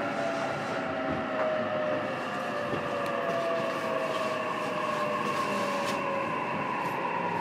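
JR East E233-series electric train running, heard from inside a motor car: steady running noise with the whine of the VVVF inverter and traction motors, one tone slowly falling in pitch while another rises slightly.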